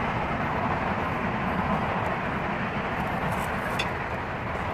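Long eggplants being turned with metal tongs on a gas grill, the tongs clicking briefly a couple of times about three and a half seconds in, over a steady rushing noise.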